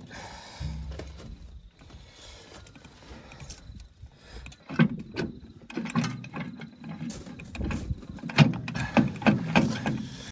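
Metal knocks and clunks as a heavy steel top plate on a tractor's transmission housing is rocked and lifted, catching on parts beneath it; several sharp knocks come in the second half.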